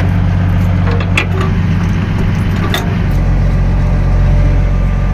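Combine harvester's engine running at a steady speed, with a couple of brief sharp knocks, about a second in and near three seconds in.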